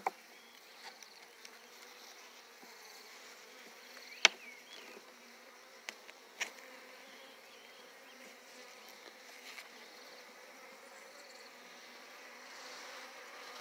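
Honeybees buzzing around an open hive, a steady hum. A sharp knock about four seconds in and two lighter clicks a couple of seconds later come from a metal hive tool prying a wooden frame loose.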